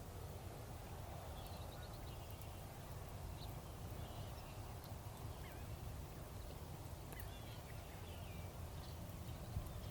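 Faint outdoor ambience: a steady low rumble with short, scattered bird calls, a few chirps and trills about every second or two.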